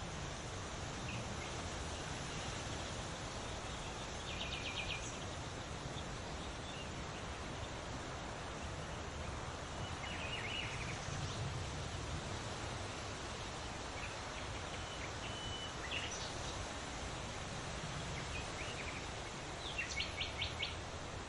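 Birds calling over a steady natural background hiss: short chirps now and then, with quick trills of rapid notes about five seconds in, around the middle and near the end.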